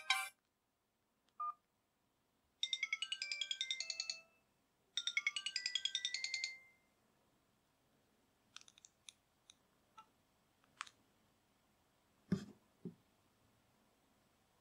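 Sony Ericsson W380i mobile phone playing a short electronic melody of quick notes twice, each phrase lasting about a second and a half, after a single short beep. Later come a few light clicks and two dull knocks.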